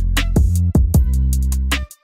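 Electronic intro music: a deep, sustained bass line under drum-machine kicks and hi-hats, cutting out briefly near the end.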